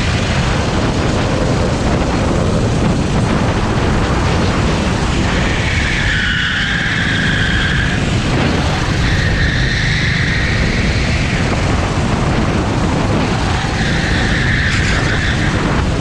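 Rental kart's Honda GX390 single-cylinder four-stroke engine running at racing speed, heard from onboard over heavy wind noise, with a higher note coming and going three times.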